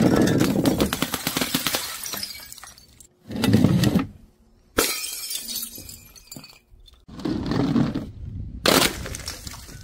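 A run of separate smashing impacts from paint-filled plastic bottles, a jar of balls and paint balls dropped from a height and bursting on paving. Each is a sudden crash followed by crackling and spattering: one dies away early on, and four more come at intervals of about two seconds.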